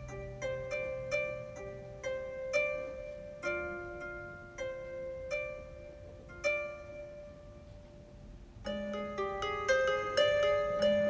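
Background music of plucked-string notes, harp-like, each note struck and left to fade in a slow, gentle melody. About two-thirds of the way through it turns fuller and louder, with more notes sounding together.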